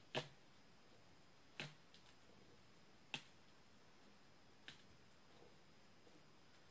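A thin wooden stick tapping on a stretched canvas as paint is dabbed on, about one faint sharp click every second and a half, otherwise near silence.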